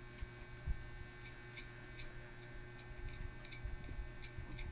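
Faint, regular light ticking, about three ticks a second, over a steady low electrical hum.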